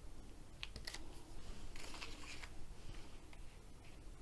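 Faint rustling and crinkling of a sheet of release paper being laid down and smoothed by hand onto a glued canvas, with a few small clicks and taps.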